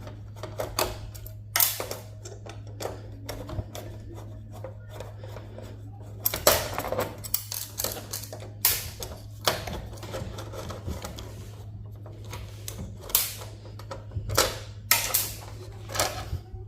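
Irregular clicks and clacks of metal hand tools working on a server circuit board, prying at components, over a steady low electrical hum.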